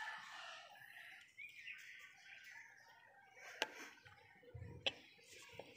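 Wooden rolling pin rolling folded paratha dough on a floured wooden board, with two sharp knocks past the middle, a little over a second apart.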